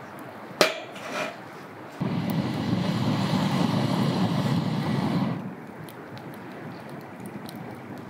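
A sharp knock of something hard, a lighter one just after, then about three seconds of low rushing noise that starts abruptly and fades out.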